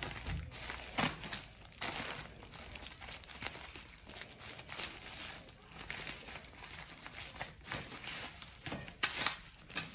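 Black plastic shipping bag crinkling and rustling in irregular bursts as it is cut open with scissors and pulled off the packed bottles.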